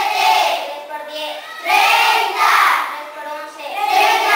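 A class of schoolchildren chanting a multiplication table in unison in Spanish, in a sing-song rhythm, one phrase about every two seconds.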